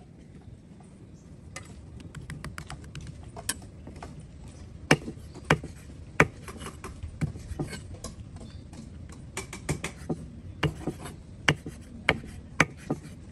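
Knife blade chopping through raw spring rolls onto a wooden block. A string of sharp, irregular knocks, loudest about five to six seconds in and again near the end.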